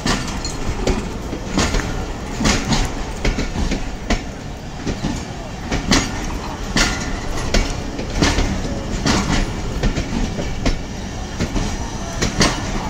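Passenger train coaches rolling past along the platform, their wheels clunking and clicking irregularly over rail joints over a steady rumble as the train pulls out.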